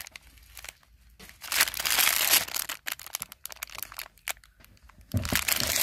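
Clear plastic bags of carded earrings crinkling and rustling as they are handled. The rustling comes in irregular bursts, loudest about a second and a half in and again near the end.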